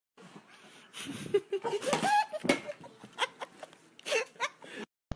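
A person laughing in loud, irregular bursts that cut off suddenly near the end.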